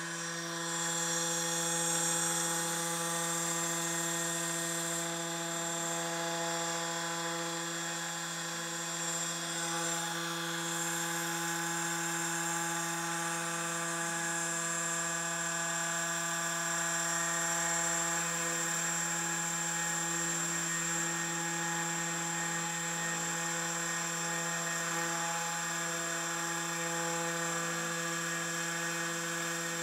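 CNC 2418 desktop engraving machine running an engraving job: its motors give a steady pitched hum and whine, with an even hiss above, that holds at one level throughout.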